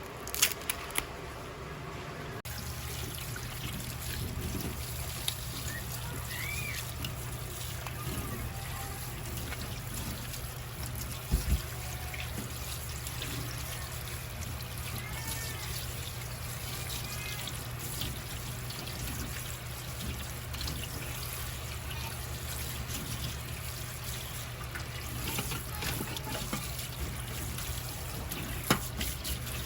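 Water running steadily, starting abruptly about two and a half seconds in, over a low hum, with a few sharp knocks, the loudest about eleven seconds in.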